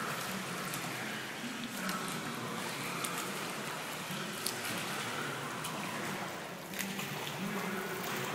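Water splashing from a swimmer's front-crawl arm strokes and kicks, over the steady hiss of an indoor pool, with a few sharper splashes.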